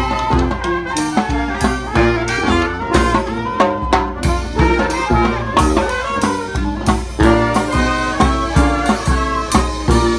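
Brass band playing a jazzy tune live: trombones and trumpets over a sousaphone bass line, with a bass drum keeping a steady beat.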